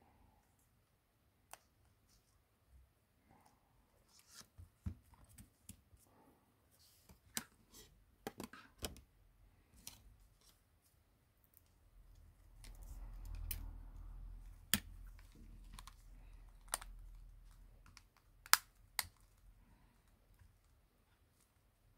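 Faint, scattered sharp clicks and taps of small tools and parts being handled during smartphone repair, with a low rumble for several seconds in the middle.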